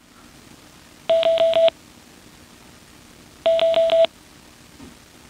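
SENA SC1 helmet headset beeping through its speaker: two short trains of about four quick beeps each, a couple of seconds apart. This is the headset in selective pairing mode, waiting to connect.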